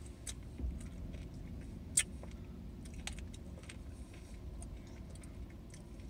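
Plastic spoons clicking and scraping in ice cream cups as two people eat, with a sharp click about two seconds in, over the steady low hum of a car cabin.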